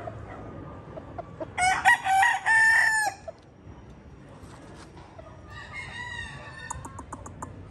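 Gamefowl rooster crowing loudly once about two seconds in, a single long multi-part crow, then a second, fainter crow near the end.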